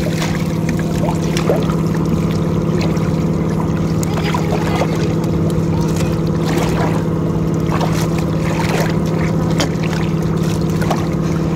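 An engine running steadily at one low pitch, over scattered small splashes and slaps of small fish flapping in a wet mesh net.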